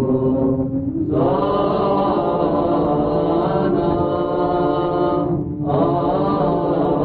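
Slow chanting of long held notes over a steady, unbroken drone note, in the manner of Orthodox chant with its ison. The melody breaks off briefly twice, about half a second in and again about five and a half seconds in, while the drone carries on underneath.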